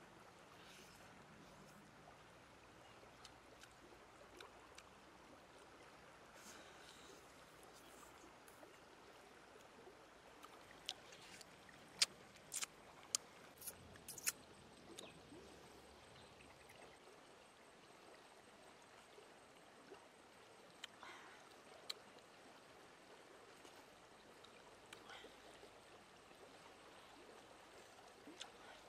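Faint, steady running of a shallow stream, with a scatter of sharp clicks and taps about halfway through.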